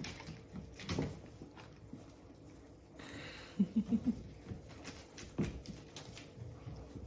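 A small puppy snuffling quietly while it nuzzles, with a few soft clicks and a quick run of four short low grunts about halfway through.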